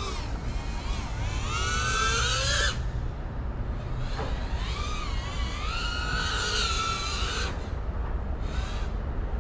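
FPV quadcopter's electric motors whining, the pitch rising and falling as the throttle is worked. The whine cuts out twice, about three seconds in and again near eight seconds, over a steady low rumble.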